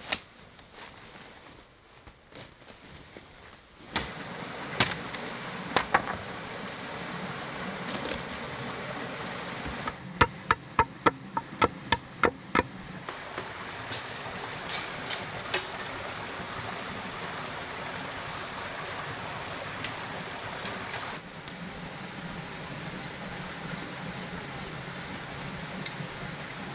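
A small waterfall and stream running steadily, with a run of about eight sharp tool strikes on bamboo or wood about ten seconds in. There are a few single strikes just before that, and soft footsteps through forest undergrowth at the start.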